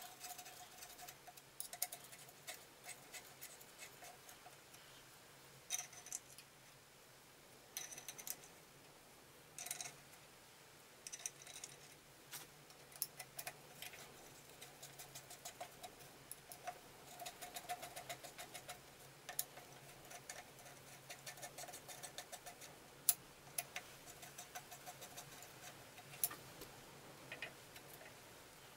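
Faint small metallic clicks and ticks of a hex driver turning cap head screws into the ball-gear retaining plates of an Atlas 7B shaper. The ticks come irregularly at first and run more closely together from about halfway in.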